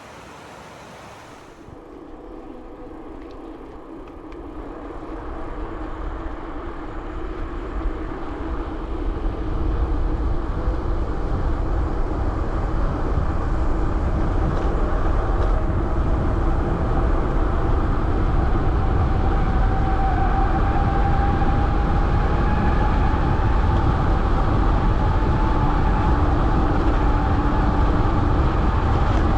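Wind rushing over a chest-mounted action camera's microphone, with a tyre hum underneath, building over the first ten seconds as the bike gains speed and then holding steady.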